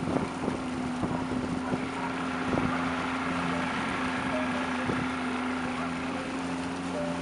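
75 hp Mercury outboard motor running at a steady speed, pushing an aluminum bass boat, with wind on the microphone and a few light knocks in the first seconds.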